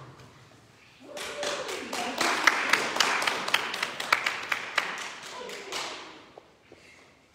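Scattered applause from a small group, with a few voices, starting about a second in and fading out about six seconds in.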